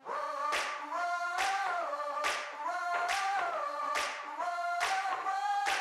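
Background music: held choir-like vocal chords that shift pitch slowly, over a sharp percussion hit a little more often than once a second.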